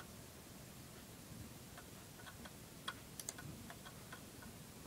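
Faint, irregular ticking of a Toshiba MK4018GAS laptop hard drive seeking while a program loads, over a low steady hum from the laptop's cooling fan.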